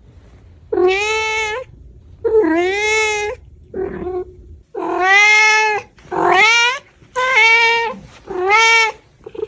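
A cat meowing over and over: about seven drawn-out meows of roughly a second each, with short pauses between them. One shorter, lower meow comes near the middle, and one after it rises in pitch.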